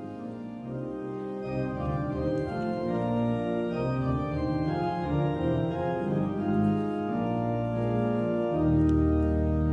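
Church organ playing a slow passage of held chords that grows louder, with deep bass notes coming in near the end.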